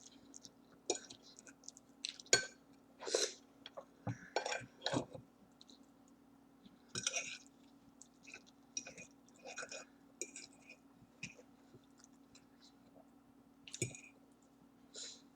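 Close-up eating sounds of spaghetti: irregular wet chewing and mouth smacks, with a few light clinks of a utensil against a dish.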